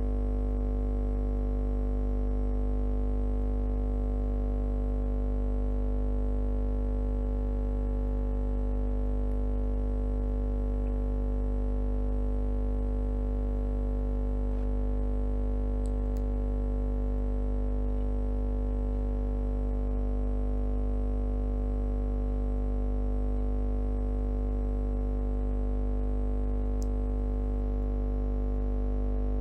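A steady, unchanging hum made of many held tones, strongest in the deep bass, with a couple of very faint ticks about halfway through and near the end.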